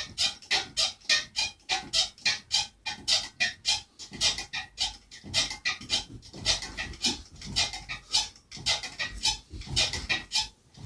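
Wobbling ceiling fan clicking or rattling in a steady rhythm, about three to four strokes a second, once per turn of the off-balance blades.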